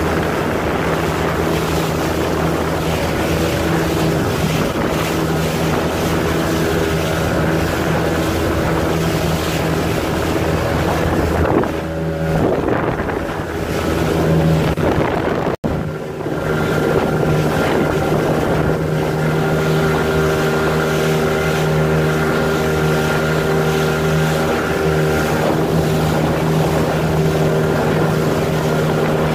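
Motorboat engine running steadily under way, a constant low drone with wind buffeting the microphone; the sound dips briefly and cuts out for an instant about halfway through.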